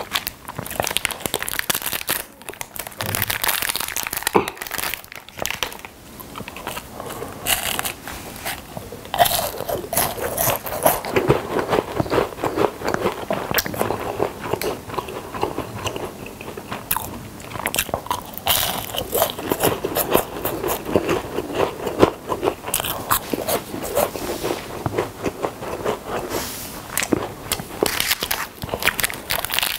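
Close-miked biting and chewing of a crisp, flaky packaged snack bar: dense, irregular crunches, bite after bite.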